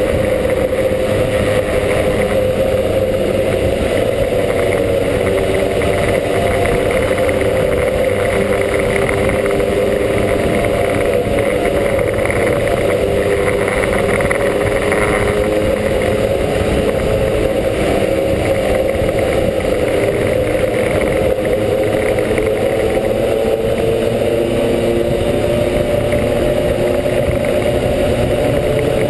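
Two-stroke Lambretta GP scooter engine with a TS1 kit, running steadily at cruising speed in a road tunnel, with only small rises and falls in pitch.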